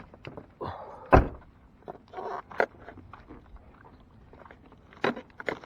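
A series of knocks, clunks and clicks from gear being handled, the loudest a sharp thump about a second in, with a short rustle a second later and a few more clicks near the end.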